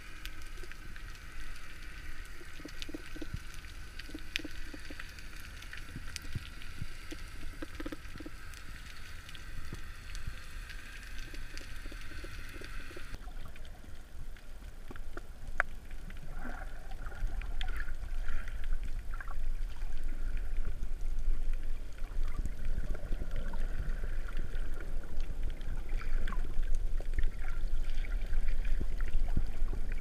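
Underwater ambience: a steady, muffled low rumble of water with scattered small clicks and crackles. The sound changes abruptly about 13 seconds in and grows louder toward the end.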